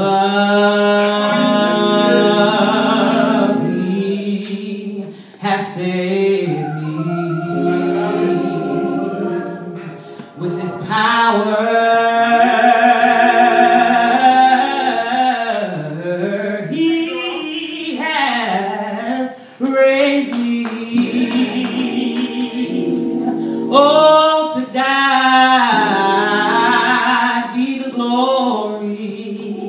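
A woman sings a gospel solo into a microphone, in long phrases of held, wavering notes with short breaks between them, over steady low accompaniment.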